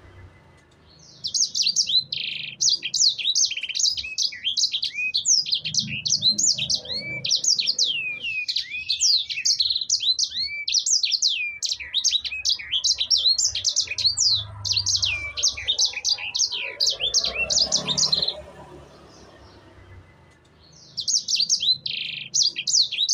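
Sanger songbird singing a fast, continuous run of high chirps and trills for about seventeen seconds, breaking off for a few seconds and starting again near the end.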